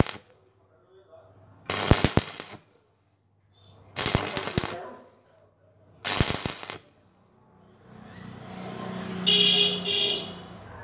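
Stick-welding arc crackling in four short bursts about two seconds apart, then a longer, softer stretch near the end: the electrode is struck and broken off again and again to build weld across a wide gap between square steel bars.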